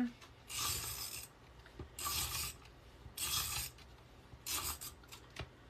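Elmer's tape runner drawn across cardstock in four short rasping strokes about a second apart, laying down adhesive tape.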